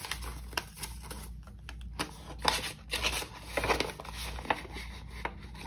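Paper dollar bills being handled and counted: rustling and crinkling with irregular short snaps and flicks.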